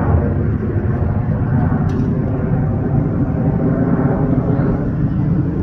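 Boeing 737-700 jet airliner with CFM56-7B engines passing overhead: a steady, low, rumbling engine roar.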